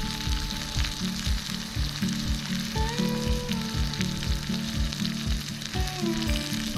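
Food sizzling as it fries in a pan, a steady crackling hiss, with background music underneath.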